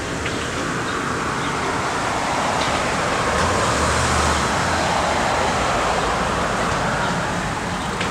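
Road traffic noise: a steady rush that swells to its loudest around the middle, as a vehicle passes, then eases off.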